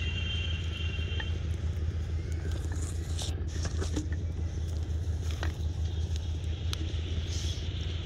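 A steady low mechanical hum, with a few short clicks and scrapes between about three and five seconds in.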